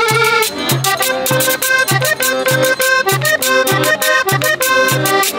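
Colombian-style cumbia music with accordion over a steady bass beat of about two pulses a second and a regular percussion tick.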